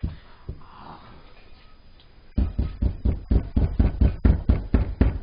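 Thick brownie batter being stirred vigorously with a spatula in a mixing bowl: rapid knocking thumps of spatula and bowl, about five a second. The knocking starts a little over two seconds in, after a couple of single thumps.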